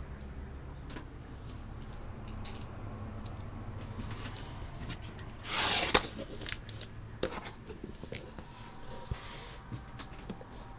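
Cardboard packaging of a Wacom Cintiq 22HD being handled: flaps rubbing and scraping, with scattered small taps and one louder scraping slide a little past halfway.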